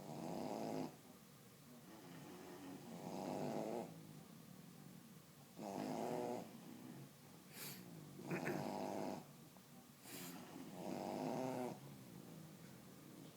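A bulldog snoring in sleep: about five snores, one every two to three seconds, each lasting about a second, with quieter breathing between.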